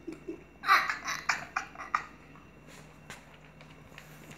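A person laughing: a couple of short voiced giggles, then a run of about five breathy laughs starting about a second in and fading out, over a steady low hum.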